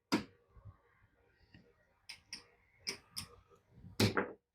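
Casino chips clicking and clacking as they are handled and stacked during a bet press, about six separate sharp clacks, the loudest about four seconds in.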